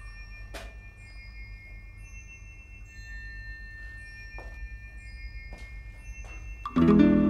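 Film score music: sparse, held chime-like tones with a few soft clicks over a low drone, then a loud plucked-string chord comes in near the end.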